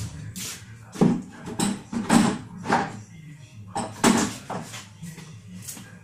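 Wooden beehive frames knocking and clattering as they are lifted out of a hive box and handled, about ten irregular knocks.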